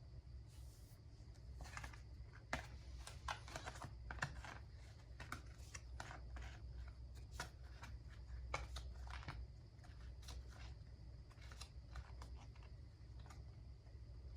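Tarot cards being shuffled and handled: a run of irregular soft clicks and taps over a low steady hum.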